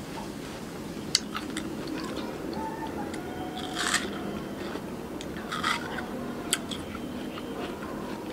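Someone biting into and chewing fresh watermelon: a handful of short, wet crunches, the loudest about four seconds in, with chewing between them.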